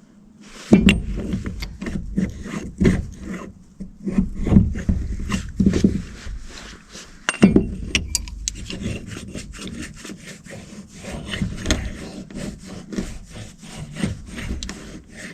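Repeated rough hand strokes of a file scraping metal, irregular at about one or two a second with a brief pause about seven seconds in, taking a burr and old hard crud off the log-loader part.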